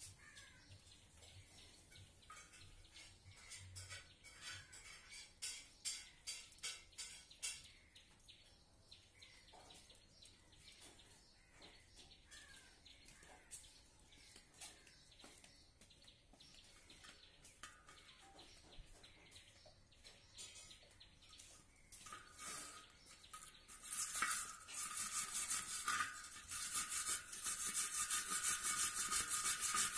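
Wire cup brush, worked by hand on a bar, scraping rust off a motorbike's spoke wheel rim: scattered scrapes and ticks at first, then from about three-quarters of the way in a loud, continuous, fast scratching as it scrubs back and forth.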